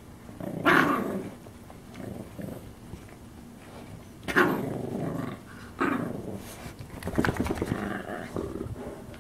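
Small dog growling in short bursts: about a second in, twice more around four and six seconds, then a fast stuttering snarl near the end. It is a warning growl, guarding the Yorkie puppy against the larger dog nosing in.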